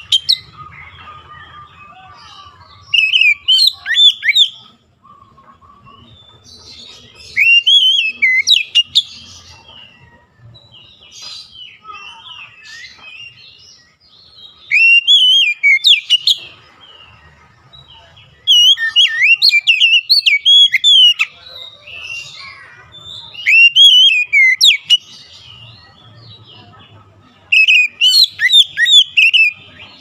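Oriental magpie-robin singing: six loud bursts of rich, rapid whistled warbling, each a second or two long, with short pauses between them.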